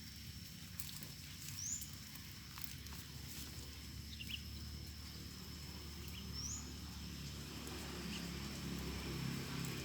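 Quiet rural outdoor background with a few short, high, rising chirps scattered through it, a faint steady high tone and a low hum that grows slightly near the end.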